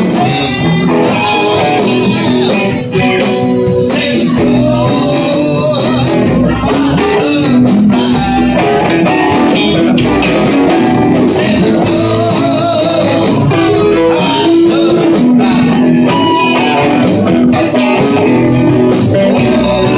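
Live rock band playing loud and steady: several electric guitars with bass guitar and drums.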